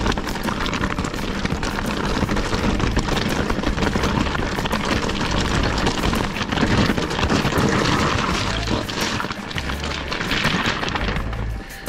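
Enduro mountain bike on a rough descent: tyres rumbling and the bike rattling over roots and rocks, with frequent knocks and wind buffeting the chest-mounted camera's microphone. Background music runs underneath.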